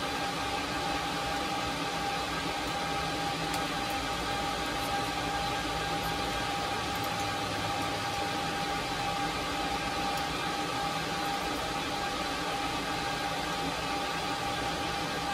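Steady background hiss with a faint constant humming tone, unchanging throughout.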